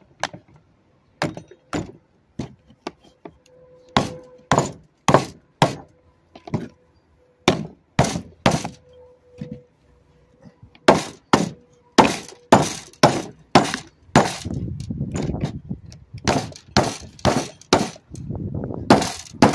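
Claw hammer striking the plastic housing and motor casing of an electric snow blower: repeated sharp cracking blows, spaced out at first, then coming in quick runs of about two a second, with a couple of seconds of rough grating noise between them.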